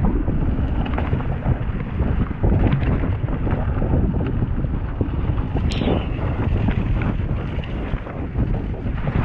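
Mountain bike riding down a rough, wet dirt-and-gravel trail: wind buffeting the microphone, tyres crunching and the bike rattling with frequent small knocks over bumps, and a brief high squeal about six seconds in.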